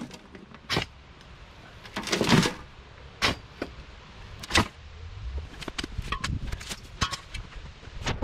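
Steel spade digging into stony soil and tipping shovelfuls of earth into a metal wheelbarrow: a few separate scrapes and thuds a little over a second apart, then a run of small clatters near the end.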